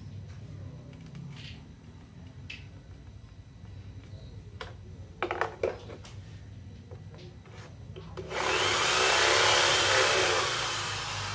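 Corded electric drill boring into a plywood panel: a few short knocks and clatters as it is handled, then from about eight seconds in the loud, steady run of the bit cutting through the wood.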